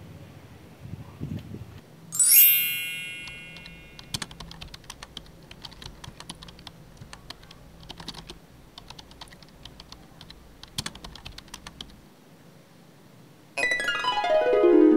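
Computer-keyboard typing clicks, rapid and uneven, for about eight seconds. A bright ringing chime comes before them, about two seconds in, and a loud sweep of tones falling in pitch comes near the end.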